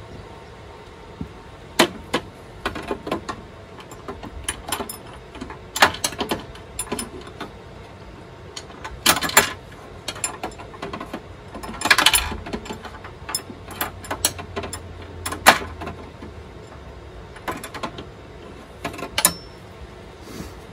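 Irregular metallic clicks, taps and short scrapes of a long screwdriver working at a screw deep inside the housing of a Parkside PTK 2000 D3 table saw, with a couple of longer scraping rattles about nine and twelve seconds in.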